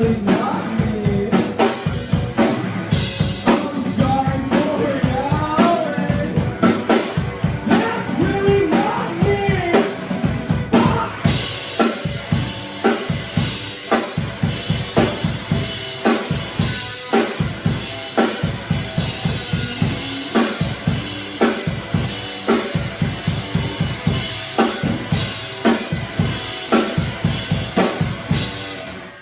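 Live band playing a song, the drum kit keeping a steady beat with bass drum and snare. A singer's voice is heard over it in roughly the first ten seconds.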